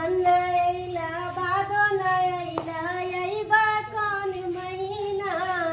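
A high-pitched voice singing a slow, drawn-out melody in long held notes that waver in pitch.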